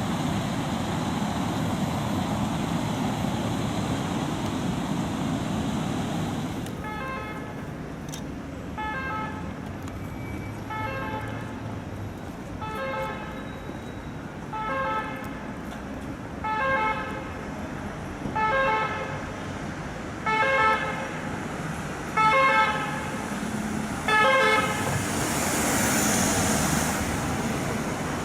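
Road traffic noise, then a French ambulance siren cutting in about a quarter of the way through, its tones repeating about every two seconds and growing louder as the vehicle approaches. Near the end the siren stops and the ambulance passes with a rush of engine and road noise.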